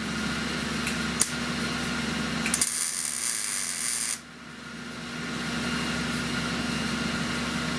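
Short bursts of MIG welding on car-body sheet metal: a crackling hiss of about a second and a half near the middle that cuts off sharply, with a couple of sharp clicks before it, over a steady hum from the welding equipment.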